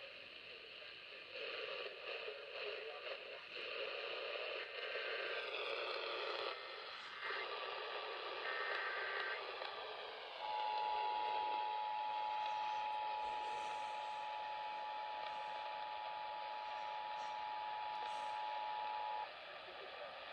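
Emergency Alert System test signal received over a radio with steady static hiss. Three short bursts of SAME header data tones come first, then the two-tone EAS attention signal, held steady for about nine seconds before it cuts off near the end.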